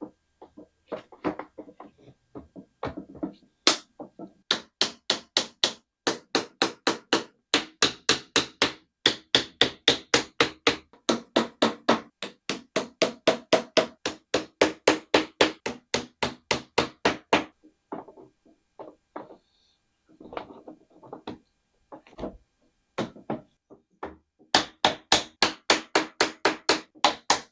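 Small wooden mallet striking the plastic joints of a metal-tube shoe rack, knocking the stacked tiers down onto their short connecting rods. The blows come in quick, even runs of about three a second. They stop for a few seconds in the middle and start again near the end, after a few lighter knocks and rattles at the start.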